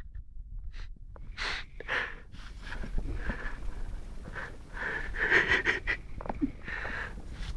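Saint Bernard dog snoring in its sleep: a run of noisy breaths, the longest and loudest a little past the middle.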